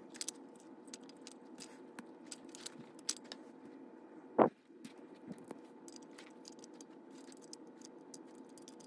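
Small metal parts of a brass HO model locomotive and tender clicking and tapping as they are handled, the drawbar fitted between them and a screwdriver worked on a screw, with one louder thump about four and a half seconds in. A faint steady hum sits underneath.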